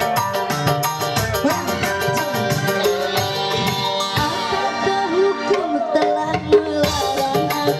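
Live dangdut band music with no singing: kendang hand drums beating a quick, busy rhythm under a keyboard melody with sliding notes.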